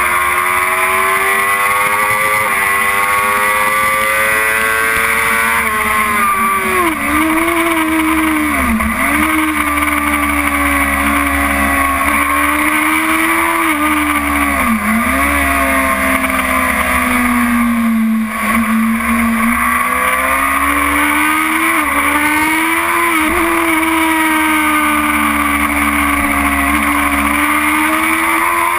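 BMW S1000RR's inline-four engine at racing speed, heard from the bike itself with heavy wind rush. The revs climb in steps with upshifts, then dip and recover sharply several times as the bike is downshifted. They are lowest a little past the middle, then climb through upshifts again near the end.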